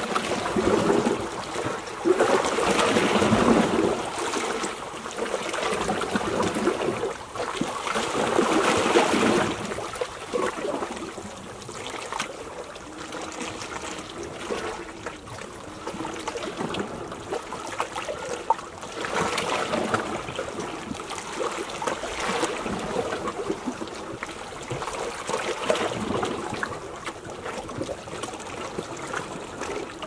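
Small sea waves lapping and washing at a rocky shore, swelling and ebbing every few seconds, louder in the first ten seconds.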